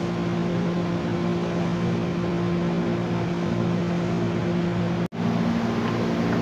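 KRL electric commuter train running with a steady electrical hum and rumble. About five seconds in, the sound drops out for an instant and comes back with the hum at a higher pitch.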